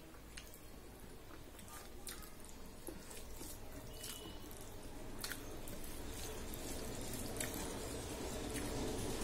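Eating rice and dal by hand from a steel plate: wet squishing of fingers mixing the food and chewing, with small sharp clicks here and there. It grows gradually louder.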